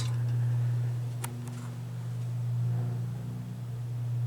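Heritage Crusader ceiling fan's motor running on low speed with a steady low hum, swelling and easing gently, and a light click about a second in. The hum is normal for these older fans, the owner says, the capacitor having been checked.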